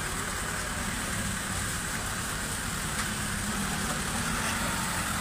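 Lifted Nissan Terrano 4x4's diesel engine running steadily at low revs as the truck creeps along at walking pace.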